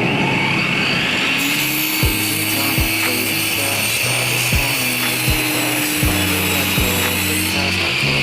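Background pop music with a steady drum beat and a bass line.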